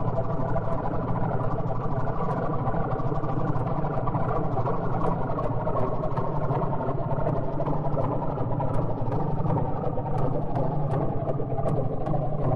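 Experimental electronic soundtrack: a steady, dense drone with sharp clicks scattered through it, more of them in the second half.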